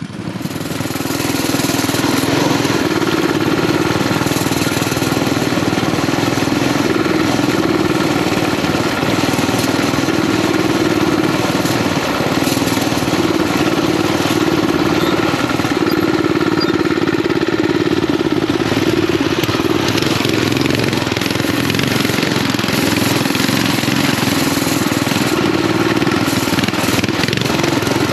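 Coleman BT200X mini bike's single-cylinder engine running steadily as the bike is ridden over river gravel, heard from the rider's seat.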